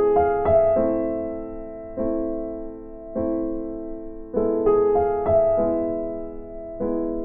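Background piano music: chords struck about once a second, each note ringing and fading, with quick runs of notes at the start and again about two-thirds of the way in.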